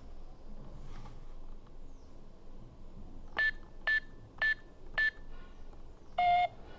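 Keypad of a toy electronic piggy-bank safe beeping: four short high beeps about half a second apart as the digits of a new password are keyed in, then one longer, lower tone near the end as # is pressed to confirm the password reset.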